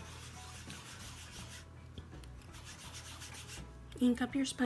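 A small piece of sponge is rubbed and dabbed on a Close To My Heart ink pad to load it with ink. It makes a dry, scratchy scuffing for about the first second and a half, then only faint scuffs follow.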